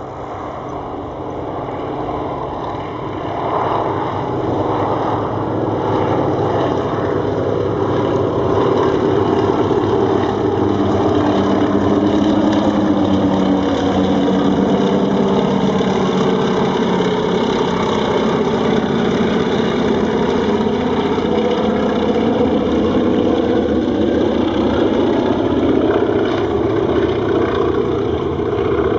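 Nine-cylinder radial engines of three Antonov An-2 biplanes running together in a low formation flypast. The sound grows louder over the first several seconds and then holds steady, and the engine pitch slides down and back up midway through.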